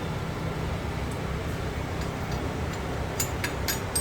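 Steady low shop hum with a few light clicks about three seconds in, as the steel pieces of a homemade transmission bearing-puller tool are handled and fitted together.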